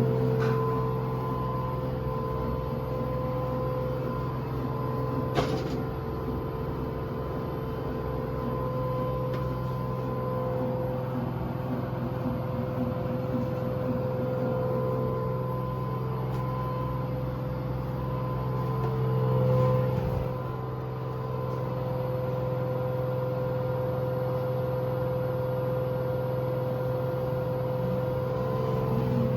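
Washing machine drum spinning at full speed in its final spin: a steady hum with a constant whine above it. A single sharp click comes about five seconds in, and the sound swells briefly about two-thirds of the way through.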